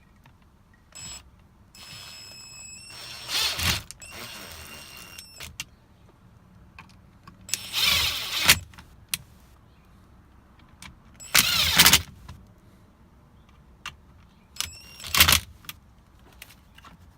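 Cordless power driver running in about four short bursts, whirring as it drives in the Torx bolts on a steering column's ignition switch housing.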